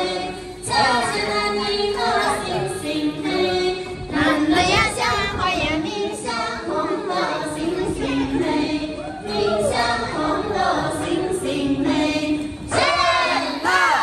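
A group of women singing a folk song together, several voices with long held notes. Louder, swooping calls come in near the end.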